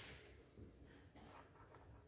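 Near silence: room hum with a few faint rustles as alligator-clip test leads are handled.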